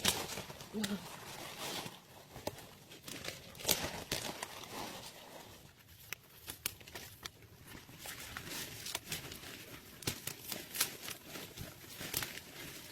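Leaves being picked by hand: irregular crisp snaps as stems break, over a steady rustle of foliage.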